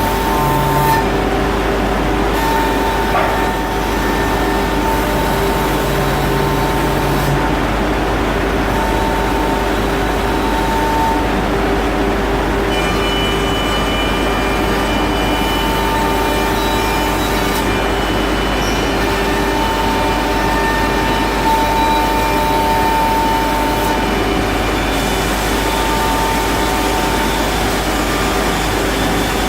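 CNC router spindle running and milling wooden stair treads: a steady machine noise with a constant whine and higher tones that come and go.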